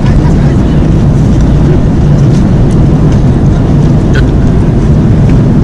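Airliner cabin noise in flight: the steady, loud rush of the jet engines and air around the cabin, with a faint tick about four seconds in.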